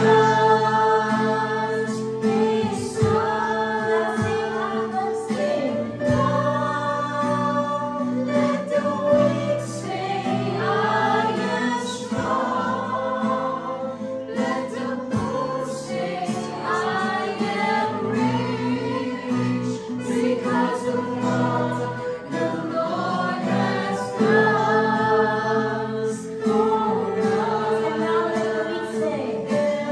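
Music: a song with voices singing in phrases of a few seconds each over a steady low accompaniment.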